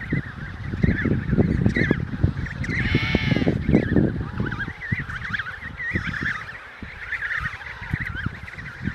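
Fowl calling: many quick, high wavering peeps throughout, with a louder honk-like call about three seconds in, over low thumps and rustling.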